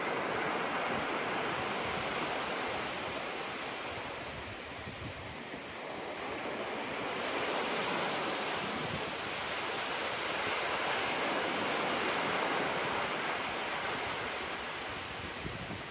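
Gentle ocean waves washing onto the shore, swelling and easing slowly, with a faint wind noise on the microphone.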